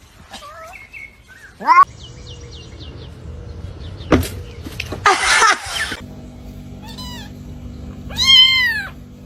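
Cats meowing: a short rising meow about two seconds in, another near seven seconds, and a longer, louder meow near the end. A thump and a brief rush of noise come midway.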